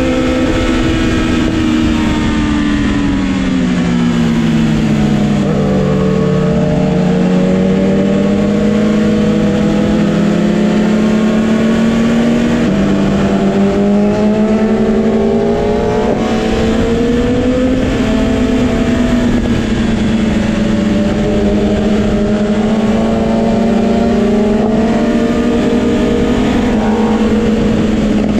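Sport motorcycle engine running under load through a series of bends: its pitch sinks for the first few seconds as it slows, then climbs and wavers as it accelerates, with a gear change about midway. A steady rush of wind lies under it.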